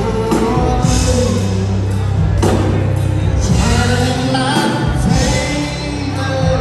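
Live gospel worship music: singers led by a vocalist over a band with a drum kit, guitar and a strong, steady bass line.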